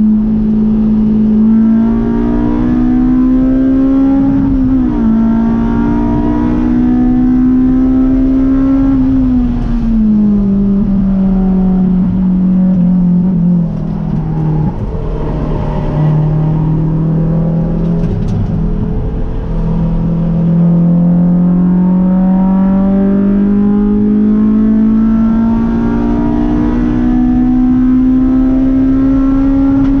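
Honda S2000's four-cylinder engine at full throttle on a track lap, heard from inside the cabin. It revs up and drops sharply at an upshift about four and a half seconds in, then winds down for a corner through the middle with a couple of brief breaks. After that it climbs steadily through the revs again.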